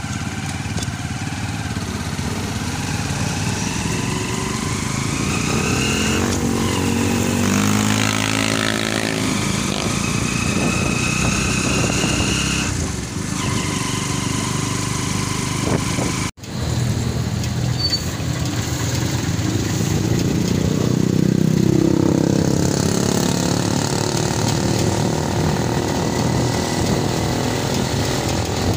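Engine and road noise of a moving motor vehicle, heard from on board, with the engine pitch changing a couple of times. The sound briefly drops out about halfway through.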